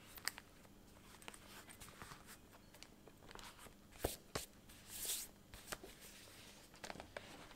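Quiet handling of a leather traveler's notebook: soft rustles and light taps, with two sharp knocks about four seconds in and a longer rustle about a second later.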